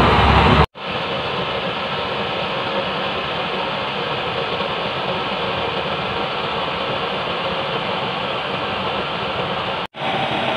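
Homemade waste-oil burner stove running, a steady rushing noise of its flame and blown-in air. The sound drops out for an instant about a second in and again near the end, and is louder and deeper before the first break.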